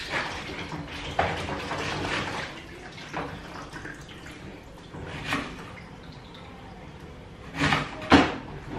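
Kitchen knife slicing an onion on a plastic cutting board: a few sharp knocks of the blade on the board, the loudest two close together near the end. Water splashes at a sink underneath.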